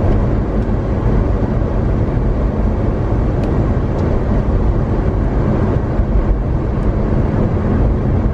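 Steady driving noise of a car on a snowy mountain road in high wind: engine and tyre rumble with the wind against the vehicle.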